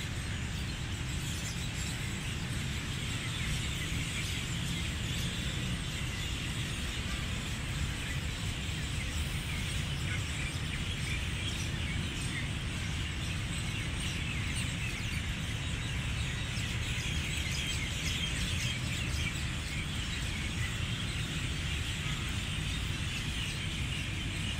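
Dense, continuous chirping and peeping of birds over a steady low rumble of outdoor background noise.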